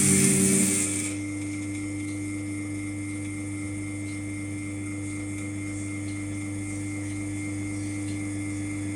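Lelit PL162T espresso machine's pump running with a steady hum, loud and hissy at first, then settling to a quieter, even hum about a second in. This is the pump noise that the owner considers a problem.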